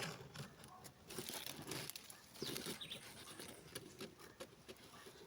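Light irregular clicks and rustling of wooden sticks being handled and laid in place on a stick-and-cord bird-trap frame, with faint animal calls in the background.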